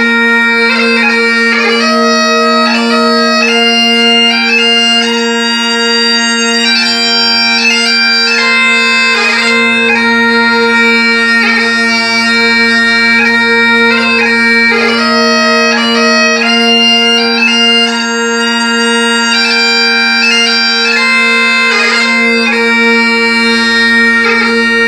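Highland bagpipes playing a tune over their steady drones, the chanter melody moving through quick ornamented notes.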